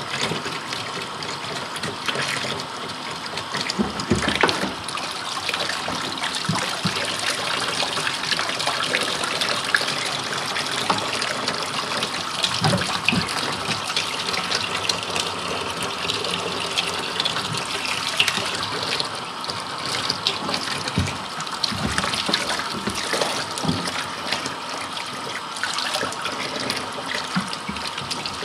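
Water running steadily, rinsing through the nasal cavity of a boiled deer skull to wash out loose tissue, with a few knocks along the way.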